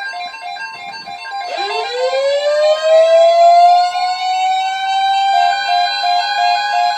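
Emergency alert tone: a steady single-pitched tone sounds under a quick repeating keyboard-like note pattern. About a second and a half in, a siren-like tone rises in pitch and then holds, with the note pattern returning near the end.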